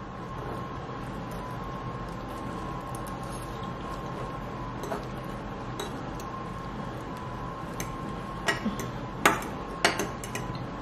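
A metal fork clinking and scraping against a ceramic plate of spaghetti a few times, mostly near the end, over a steady room hum with a faint high tone.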